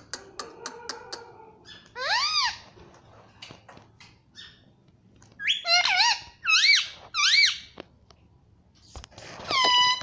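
Indian ringneck parakeet giving high, squeaky whistled calls that rise and fall in pitch: one about two seconds in, a quick run of about four in the middle, and a falling whistle near the end. Small clicks sound between the calls.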